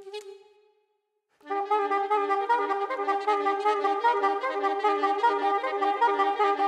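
Saxophone ensemble: one short note, a break of about a second, then several saxophones playing together in quick, rhythmic notes.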